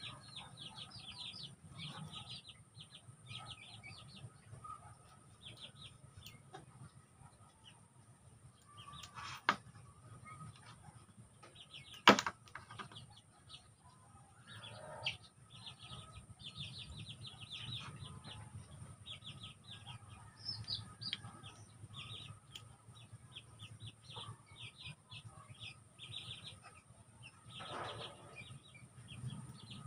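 Young chicks peeping in quick runs of short, high chirps throughout. Two sharp clicks stand out, one about nine and a half seconds in and a louder one about twelve seconds in.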